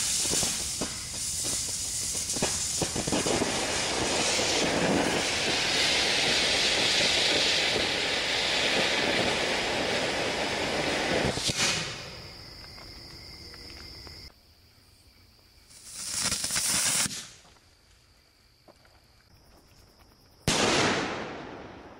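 Ground fountain firework spraying sparks: a loud, steady hiss with crackling that cuts off about twelve seconds in. Later come two short hissing bursts, the second starting sharply and fading away.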